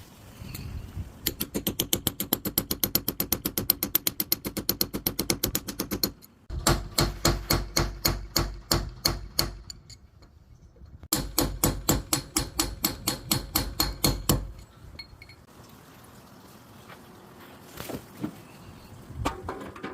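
Cordless SDS-plus hammer drill with built-in dust extractor running in hammer mode: three bursts of rapid, rhythmic hammering, stopping briefly between bursts, then going quiet with a few light knocks near the end.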